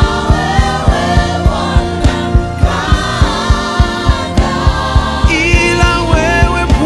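Gospel worship music: several voices singing a melody together over a band with a steady, quick drum beat.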